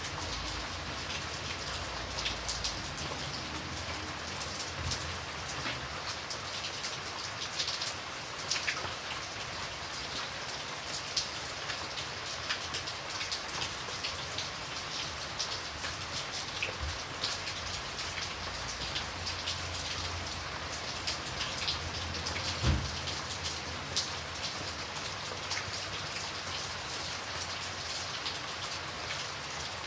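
Light rain falling steadily, with individual drops ticking on a surface throughout. A single dull low thump stands out about three-quarters of the way through.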